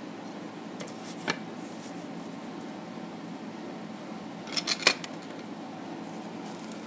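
Cut pieces of stained glass clinking as they are set down on the pattern and nudged against one another: one light tap about a second in, then a quick cluster of clinks near five seconds in, the last the loudest. A steady low hum runs underneath.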